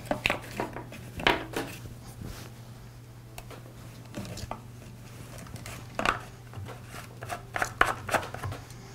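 Light plastic clicks and taps from handling a string trimmer's plastic fuel tank as the fuel line and filter are pushed back in through the filler neck and the screw-on fuel cap is fitted. A group of clicks comes near the end. A low steady hum runs underneath.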